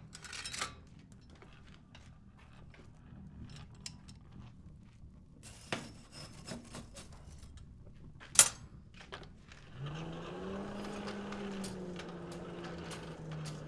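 Hard objects being handled in a workshop: scattered light clicks and knocks, with one sharp metallic clack about eight seconds in. Nearly ten seconds in, a steady hum starts, rises briefly in pitch, then holds.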